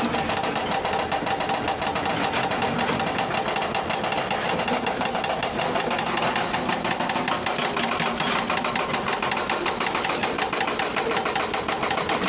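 Bucket wheel excavator machinery running steadily with a fast, even mechanical clatter, cutting off suddenly at the end.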